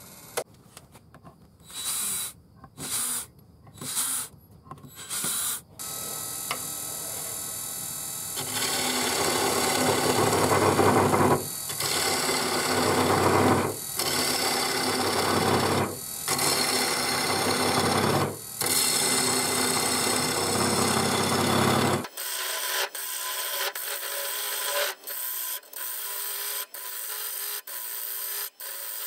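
Turning gouge cutting into a spalted maple and mahogany bowl blank spinning on a lathe, hollowing out the inside of the bowl. The first few seconds are short separate cuts. Then come long continuous cuts broken by brief pauses, and near the end a run of shorter, evenly spaced strokes.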